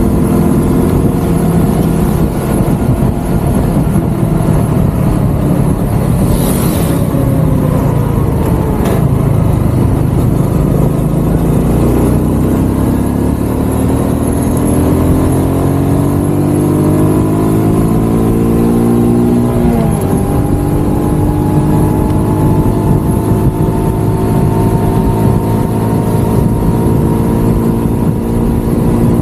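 Small motorcycle's engine running at road speed. Its note falls as the bike slows, then rises as it speeds up. It drops suddenly about two-thirds through, like a gear change, and then holds steady.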